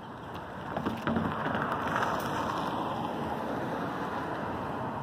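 A car drives across the railroad crossing: a couple of knocks as its tyres go over the rails about a second in, then tyre and road noise that swells and slowly fades as it drives away.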